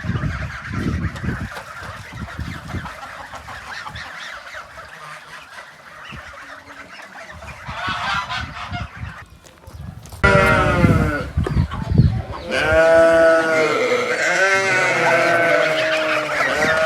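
A flock of farm animals calling, with fainter calls and low thumps at first. About ten seconds in, loud overlapping calls break out from several animals at once, some dropping in pitch and some held for a second or more.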